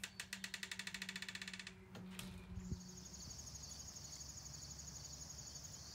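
Faint insect chirring: a rapid pulsing trill for the first second and a half or so, then, from about two and a half seconds in, a steady high-pitched buzz of crickets.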